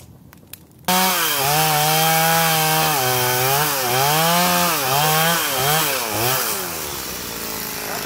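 Chainsaw cutting through a log. It starts suddenly about a second in, its pitch dips and climbs back several times as the chain loads in the cut, and it settles lower and a little quieter near the end.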